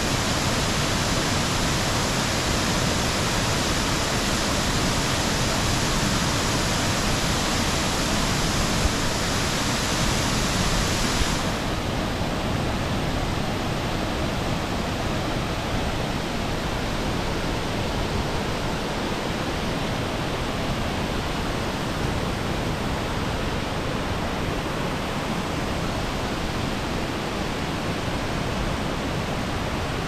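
Steady rushing of Sekinoo Falls, a broad waterfall pouring in several streams over a rock ledge into a pool. About eleven seconds in, the sound turns slightly duller and quieter.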